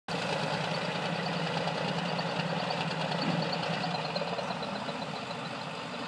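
Heavy diesel engines of crawler bulldozers idling steadily.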